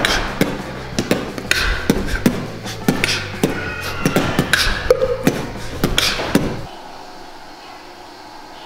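A man beatboxing: a quick run of sharp mouth clicks and percussive hits with a few short voiced sounds, echoing in the stairwell, stopping about six and a half seconds in.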